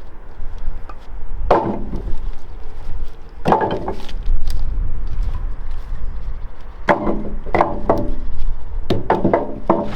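Repeated sharp wooden chops and knocks, each ringing briefly, about eight strikes in uneven groups, over a steady low hum.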